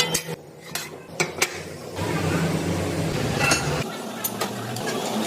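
A few sharp metallic knocks and clinks, like tools striking metal, in the first second and a half and again a little past the middle. A low, steady machine hum runs underneath from about two seconds in.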